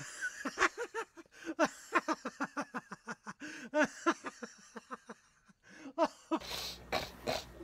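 A person laughing in a long, quick run of short 'ha' bursts, with no room noise behind it. It stops about six seconds in, when a steady room hum comes back.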